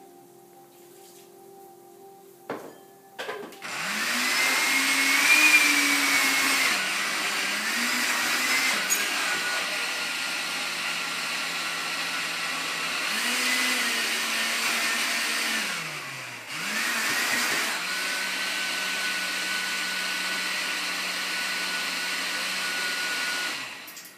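Countertop blender puréeing boiled cauliflower and stock into soup. A couple of clicks come just before the motor starts, about three and a half seconds in. It runs loudly with its pitch shifting as the contents churn, stops briefly and restarts about two-thirds of the way through, then cuts off just before the end.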